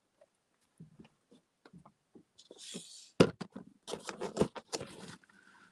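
Paper and craft supplies handled on a work table: scattered light taps and clicks, a brief paper rustle, one sharp click a little after three seconds, then a run of rustling and tapping.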